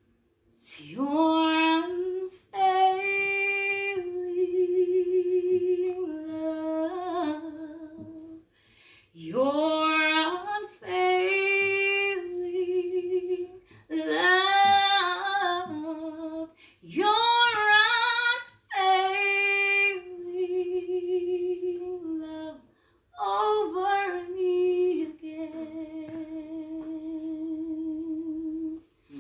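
A woman singing a worship song unaccompanied, in long phrases of held notes with vibrato, each phrase sliding up into its first note, with short breaks between phrases.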